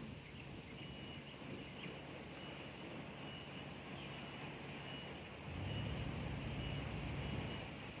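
Quiet beach ambience: a steady low hum of a distant motor under soft outdoor noise, with a faint high chirp repeating about once a second. About five and a half seconds in, a louder low rush swells for about two seconds, then drops back.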